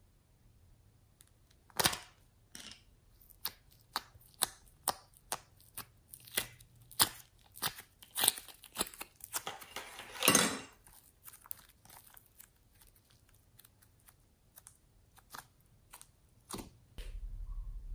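Slime being pulled out of a flower-shaped plastic container and handled: a run of short sticky clicks and crackles, with a louder tearing sound about ten seconds in.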